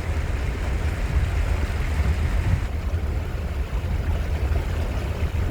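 Wind buffeting the microphone in a deep, uneven rumble over a steady hiss of heavy rain and flood water; the upper hiss eases slightly about two and a half seconds in.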